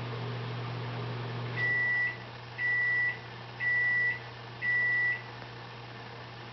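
A steady appliance hum cuts off about a second and a half in, followed by four high electronic beeps, each about half a second long and a second apart: a microwave oven finishing its cycle.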